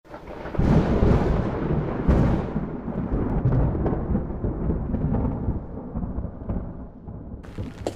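Thunder: two loud claps, about half a second and two seconds in, then a long rolling rumble that slowly fades away.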